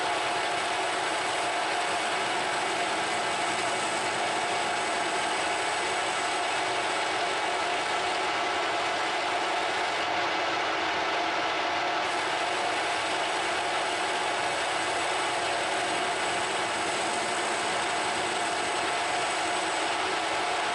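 Metal lathe running steadily under a turning cut, the tool machining the register step on a model engine's cylinder head and throwing off stringy chips. Gear noise from the lathe and the sound of the cut hold an even level throughout.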